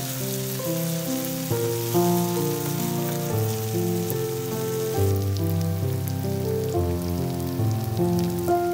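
Instrumental background music of held melodic notes changing every half second or so, over the steady sizzle and crackle of onions and tomatoes frying in a pan.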